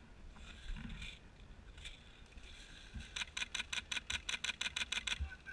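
Airsoft gun firing a rapid string of about fifteen shots, roughly seven a second, for about two seconds, starting some three seconds in.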